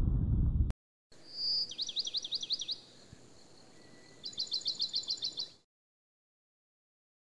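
A low rumble of thunder cuts off abruptly under a second in. After a short gap a bird sings: a brief clear whistle, then a quick run of sweeping notes about five a second, and about two seconds later a faster run of about ten notes.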